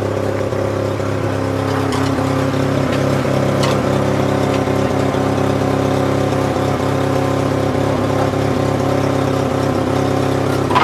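An engine running steadily at a constant speed, a continuous even hum with a few faint clicks and knocks over it.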